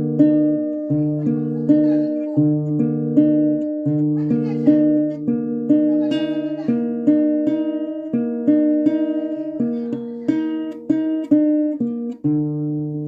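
Acoustic guitar played as a short, repeating chord progression, each chord struck sharply and left ringing before the next.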